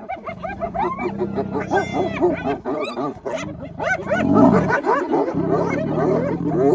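Hyenas calling in a dense, overlapping chorus of short rising-and-falling whoops and yips, over a continuous low growl, with one stronger low call about four seconds in.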